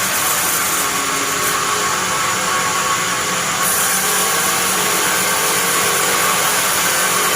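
Sawmill bandsaw machine running through a pine log: a steady, loud, dense whirring noise with a low hum under it, the top end shifting slightly a few seconds in.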